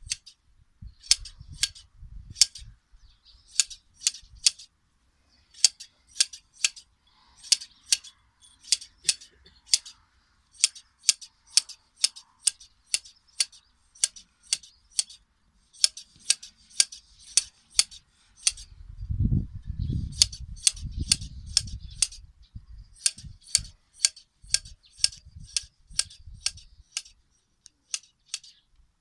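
Hand blade shears snipping through sheep's fleece: crisp metallic snips in quick runs of three to six, with short pauses between the runs. A low rumble comes in for about three seconds midway.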